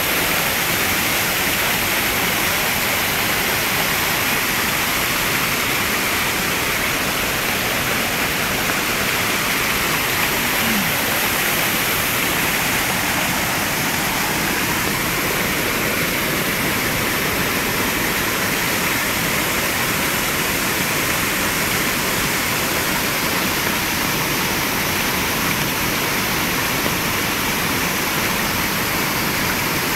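Waterfall: water falling in a steady, unbroken rush.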